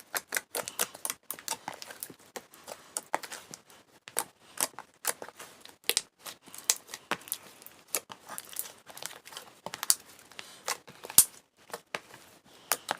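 A big mixed ball of fluffy slime being kneaded and stretched by hand, giving irregular sharp clicks and pops several times a second.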